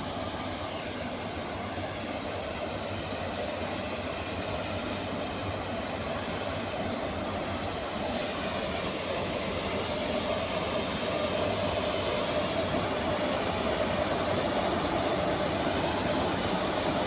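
Steady running noise of a moving Indian Railways ICF passenger coach on the track, heard from aboard the train. It grows a little louder in the second half.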